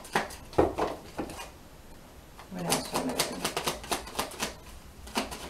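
A deck of oracle cards being handled and shuffled, making two quick runs of clicks and slaps with a short pause between, then a couple of single clicks near the end.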